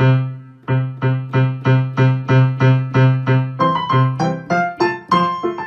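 Background music: a keyboard tune hammering one low note about three times a second, with a higher bouncing melody joining in about three and a half seconds in.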